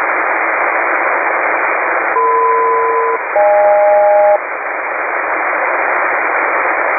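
Steady hiss of a shortwave receiver on an HF aeronautical channel in upper sideband. About two seconds in comes a SELCAL call: two steady tones sounding together for about a second, a brief gap, then a second pair of different pitches for another second. It is the ground station's selective-calling signal that alerts one aircraft's crew to an incoming call.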